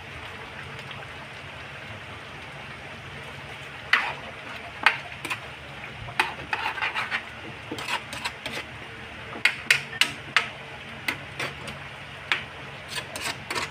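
A spatula stirring chicken caldereta in a pot. From about four seconds in it knocks and scrapes against the pot in irregular clacks, over a steady low hum.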